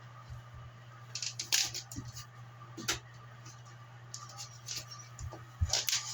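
Small fan of a Comfort Zone ceramic space heater running with a steady hum and a faint high whine, with several sharp clicks and knocks of the heater being handled, the loudest about a second and a half in and near the end.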